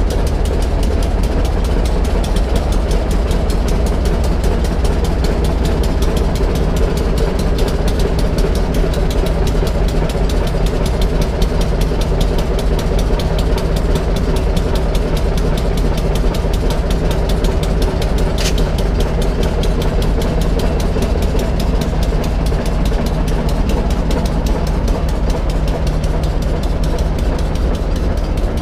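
Diesel locomotive engine idling: a steady, even low rumble that does not rise or fall, with one sharp click about eighteen seconds in.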